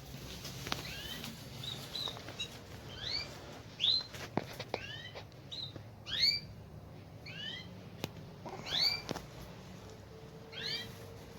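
Canaries calling in an aviary: a string of short, rising call notes, one or two a second, with a few sharp clicks in between.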